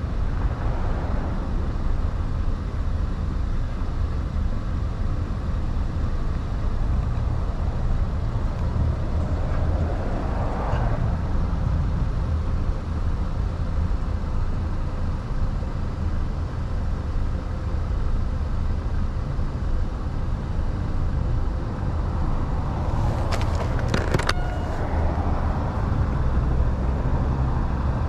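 Riding a Talaria Sting R MX4 electric dirt bike: a steady low rumble of wind and road noise. A quick cluster of sharp clicks or knocks comes a little past twenty seconds in.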